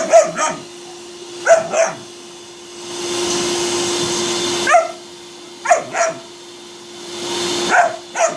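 A dog barks in short pairs every few seconds over a running vacuum cleaner, whose steady hum swells and fades between the barks.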